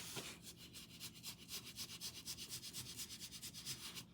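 Paintbrush rubbing across a painted surface in quick, even back-and-forth strokes, about five a second, brushing on a thin gray glaze wash.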